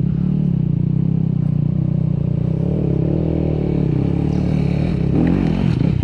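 Dirt bike engines running: the Honda CRF250RX's single-cylinder four-stroke engine ticks over close by, and another dirt bike climbs the hill toward it. The climbing bike's engine rises in pitch and gets louder about five seconds in.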